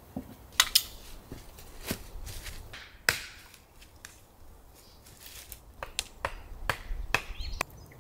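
Scattered sharp snaps and knocks, about a dozen, irregularly spaced, with a quieter stretch in the middle.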